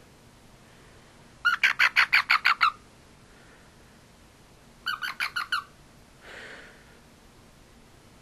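American bullfrog chirping while held in the hand: two bursts of rapid chirps, the first of about ten over a second, the second shorter with about six.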